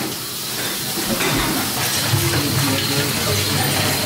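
Water running steadily from a faucet into a stainless-steel sink.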